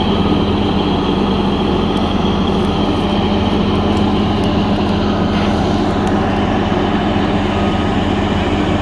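Heavy diesel engine of a BEML BE1000 hydraulic excavator running steadily at an even speed, with a few faint clicks in the middle.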